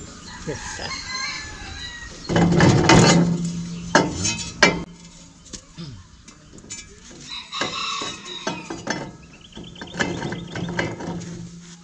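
Chickens calling, with one loud rooster-like call about two seconds in, over sharp metal clinks and knocks from wrenches on the hand tractor's disc plow as it is adjusted.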